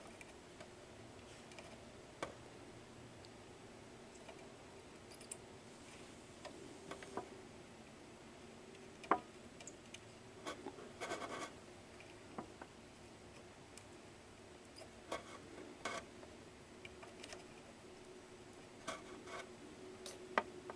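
Faint scattered clicks and light scrapes of hand soldering on a circuit board, as the iron is tacked onto a regulator chip's pins, over a low steady hum.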